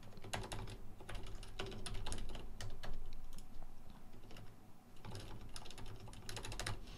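Typing on a computer keyboard: quick runs of key clicks that thin out briefly in the middle, then pick up again.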